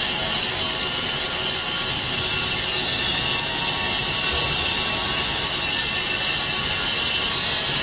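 Small vertical foam-cutting machine running steadily, its upright blade slicing a block of cellulose sponge as it is pushed along the fence; a constant high-pitched hiss with no breaks.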